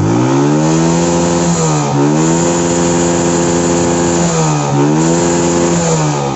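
Suzuki Shogun 125 single-cylinder four-stroke engine starting and running with the throttle worked, its pitch dipping and climbing back twice, then falling near the end as it slows. It runs because its lost ignition is restored, with the broken coil wire bypassed by a jumper.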